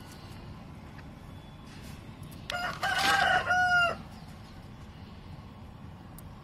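A rooster crowing once, about a second and a half long, starting about two and a half seconds in, its last note falling away.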